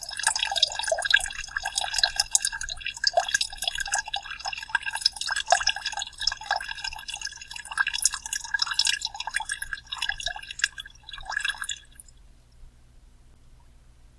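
Soda being poured out, splashing and dripping irregularly, stopping suddenly about twelve seconds in.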